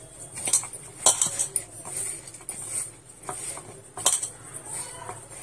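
Pakoda mix of chopped amaranth leaves, onion and gram flour being mixed by hand in a metal bowl: a soft rustle with irregular clinks and knocks of the hand against the bowl, the loudest about a second in and near four seconds.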